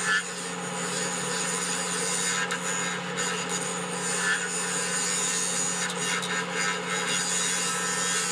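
Wood lathe running with a parting tool cutting into a spinning wooden blank: a steady motor hum under the scraping hiss of the cut, with a few brief sharper scrapes. The cut is sizing the recess that holds the slate of a pot-style turkey friction call.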